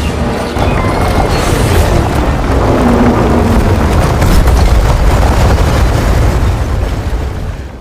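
Loud, continuous rumbling boom like a prolonged explosion, heavy in the bass, fading away at the very end.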